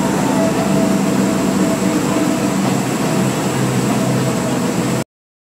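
A moving local train heard from inside the carriage: steady running noise with a faint steady tone above it, cutting off suddenly about five seconds in.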